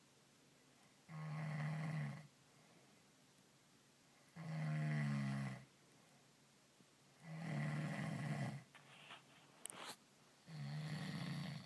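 A man snoring in his sleep: four snores of about a second each, roughly three seconds apart, with a couple of faint clicks between the third and fourth.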